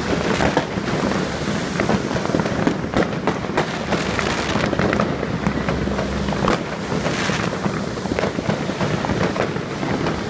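Many fireworks and firecrackers going off at once in a dense, continuous barrage of cracks and pops with no let-up.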